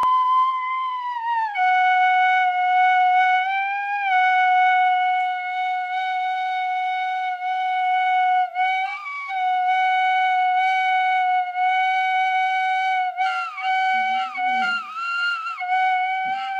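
Tin whistle playing long held notes, starting high and dropping to a lower note held for many seconds with small bends. In the last few seconds a boxer dog joins in with lower, wavering howls and whines.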